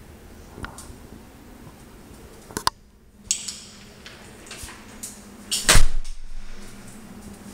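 A door being worked: a sharp latch click, a brief rustle, then the door shutting with a heavy thump about three-quarters of the way through.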